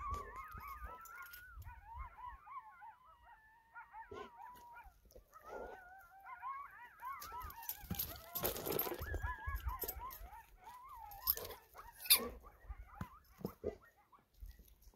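Coyotes howling and yipping, several wavering high voices overlapping in a chorus. A couple of brief rustling noises come near the middle.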